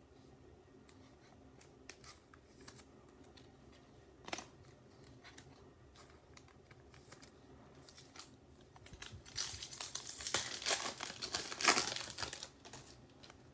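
Foil wrapper of a Topps Chrome baseball card pack crinkling and tearing as it is opened, loudest in the last few seconds. Earlier, light scattered clicks of cards being handled on the table.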